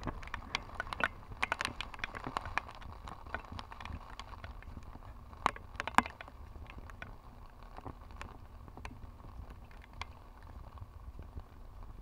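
Rain drops tapping irregularly on the camera, with two sharper taps about halfway through, over a low rumble of wind on the microphone.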